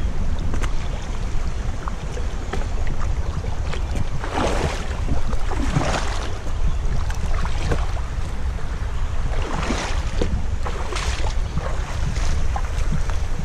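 Water splashing and sloshing in a few separate swishes, over a steady low rumble of wind on the microphone.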